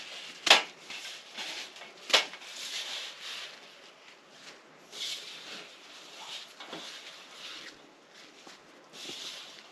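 Leafy greens rustling and crackling as they are sorted by hand over a metal tray to shake out dirt, with two sharp knocks, about half a second in and again about two seconds in.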